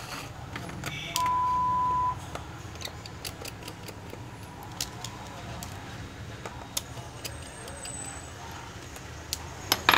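Small, sharp plastic clicks and taps from a Nokia 1200 mobile phone being handled and its casing taken apart. A steady, high beep lasts about a second near the start.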